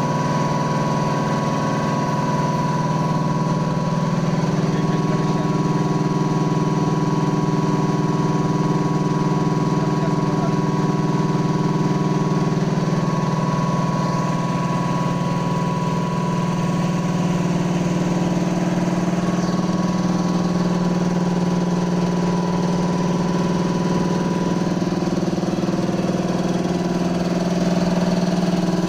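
Steady, loud drone of heavy machinery running without a break, engine-like, with a few of its pitch lines shifting slightly now and then.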